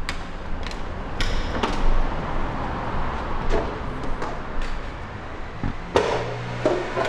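Footsteps walking on a concrete workshop floor, about two steps a second, over a low steady hum. There is a louder knock near the end as a door is pushed open.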